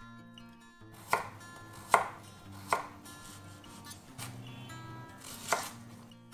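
Chef's knife chopping a red onion on a wooden cutting board: a few sharp knocks of the blade on the board, about a second apart at first, then a longer gap before the last one. Soft background music plays underneath.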